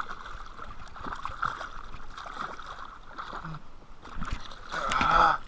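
Water splashing and gurgling beside a kayak as a hooked striped bass thrashes at the side, with a louder splash near the end.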